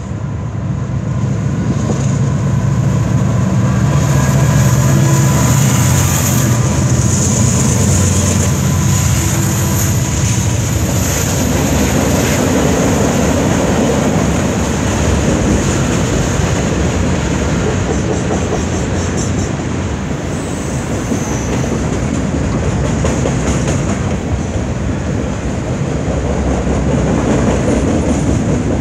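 CN freight train passing close by. For the first several seconds the diesel locomotives' engines run with a deep, steady drone as they come past. After that the freight cars roll by, a broad rumble of wheels on rail with a thin, high wheel whine above it.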